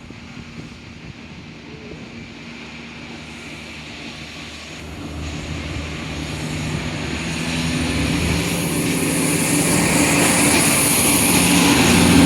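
Diesel engines of a Class 170 Turbostar diesel multiple unit running with a steady drone and rising noise, growing steadily louder from about halfway through as the train draws near.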